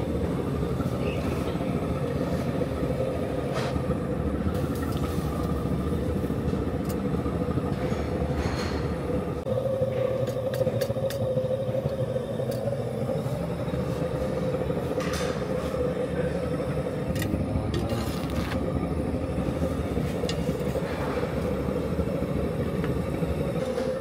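Gas burner of a clay tanoor bread oven running with a steady low roar and a steady hum, with a few light knocks of metal tongs against the oven.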